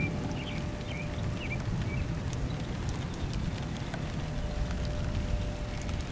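Outdoor ambience after rain: steady low wind noise on the microphone with scattered ticks of drops. A bird chirps several short notes in the first second and a half.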